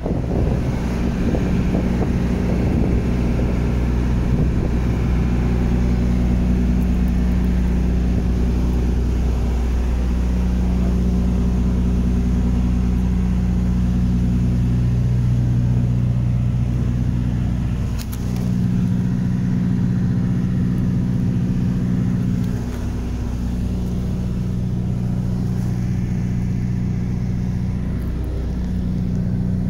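An engine running steadily at constant speed: a low, even hum made of a few fixed tones, which dips briefly a few times.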